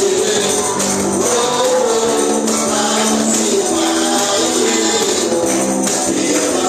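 Live gospel band playing upbeat praise music with a tambourine jangling steadily and voices singing.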